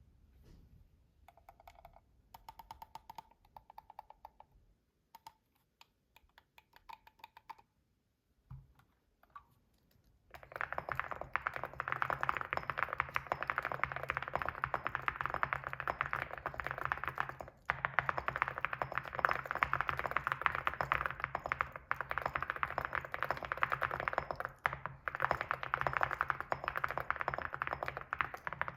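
Typing on an evo75 mechanical keyboard with ceramic keycaps. For about ten seconds there are scattered single key presses with a light ringing tone, then fast, continuous typing with two short pauses.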